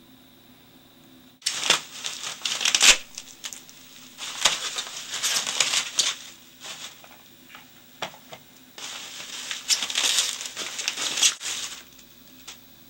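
Clear plastic wrapping crinkling as it is handled and pulled open, starting suddenly about a second and a half in, in two long spells with a short lull between.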